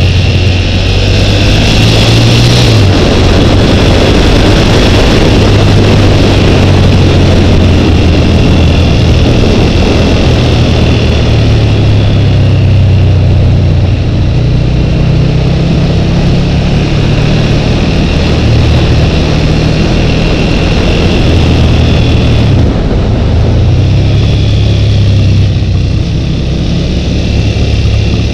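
Twin-cylinder motorcycle engine running steadily at road speed, heard from a helmet-mounted camera with wind rushing over the microphone. The engine note dips briefly about three seconds in and changes again about three-quarters of the way through as the throttle is eased.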